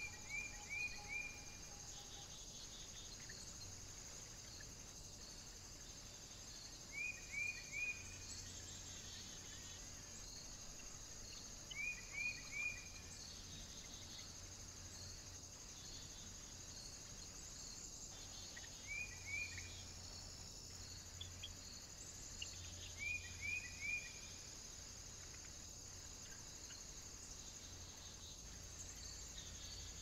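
Steady high-pitched insect chirring, like crickets, in the open air. Groups of three or four short, quick, falling chirps recur about every five seconds over the top.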